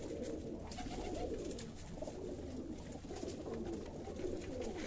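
A flock of domestic pigeons cooing, many low coos overlapping into a steady murmur, with a few faint clicks among them.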